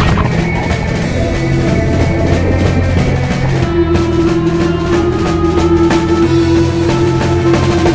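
Background rock music with drums.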